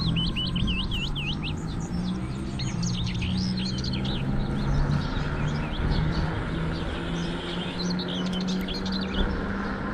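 Birds chirping and twittering repeatedly over a steady low rolling hum of bicycle tyres.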